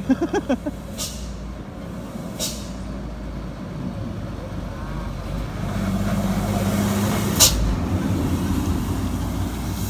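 Hino box truck's diesel engine running, growing louder as it approaches and passes close by, with three short, sharp hisses from its air brakes about a second in, about two and a half seconds in, and loudest as it goes past.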